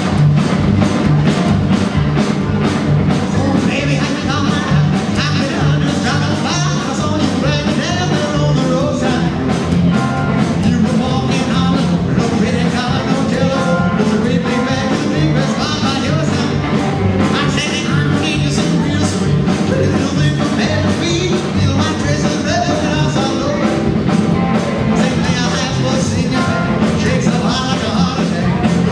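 Live rockabilly band playing: a man singing over a hollow-body electric guitar and an upright double bass, with a steady driving beat.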